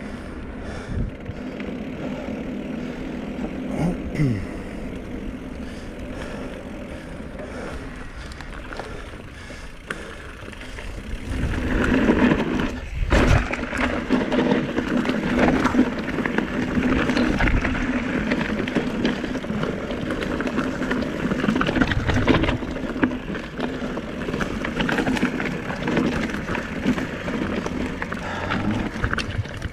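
Specialized Turbo Levo e-mountain bike being ridden: tyre and rolling noise with a steady hum underneath. About a third of the way in it turns louder and rougher, with the bike knocking and rattling as it goes over dirt and loose rocks.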